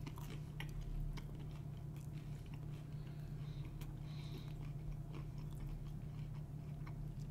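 A person biting into and chewing a slice of pizza whose crust is crisp on the bottom and soft in the middle: faint, irregular crunching and mouth clicks over a steady low hum.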